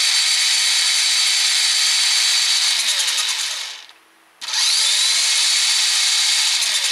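Small brushed electric drive motor and gearbox of an old Radio Shack RC car running the wheels freely, a steady high whine. It winds down and stops nearly four seconds in, then starts again half a second later with a rising whine.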